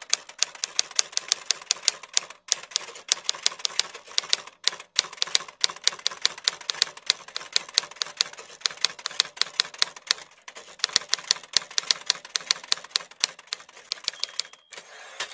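Typewriter sound effect: rapid keystroke clicks, several a second, with a few brief pauses.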